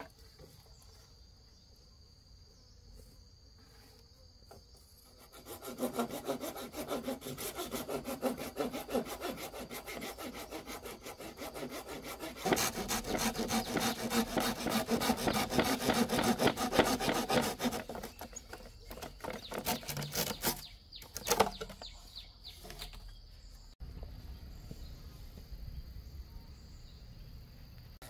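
Faint insect chirring, then rapid, rhythmic rasping strokes of a cutting or scraping action, starting about five seconds in and growing louder. They stop a little past the middle, with a few scattered strokes afterwards.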